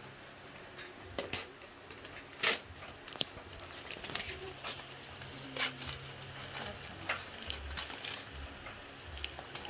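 Gift wrapping paper being torn and crinkled as a present is unwrapped: irregular rustling with scattered sharp tears, the loudest a little over two seconds in.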